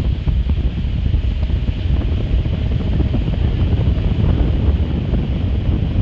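Loud wind noise rumbling on the microphone aboard a moving ferry, with the boat's engine running underneath.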